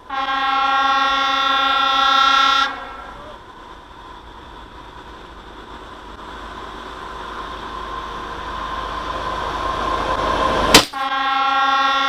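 A train horn sounds a steady blast for a couple of seconds. Then comes a noisy rumble that slowly grows louder, like a train approaching, broken about eleven seconds in by one sudden loud bang. Right after the bang the horn blasts again.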